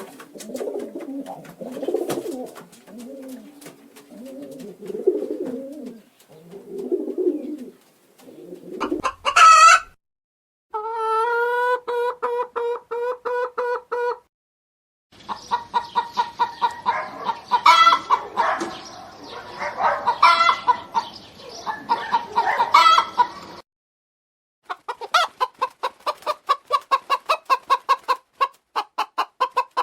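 Pigeons or doves cooing for the first several seconds. Then a rooster crows, rising and held for a few seconds. After that, hens cluck in quick runs of short calls.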